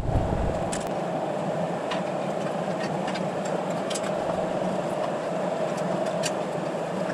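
Steady mechanical hum with a few faint, short clicks and knocks scattered through it, as the diesel particulate filter is worked up and out of the engine bay.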